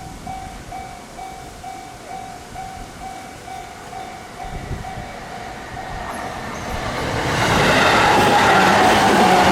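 Japanese railroad crossing warning bell ringing, an electronic ding about three times a second. A train comes through from about seven seconds in: its wheel and running noise swells quickly and drowns out the bell.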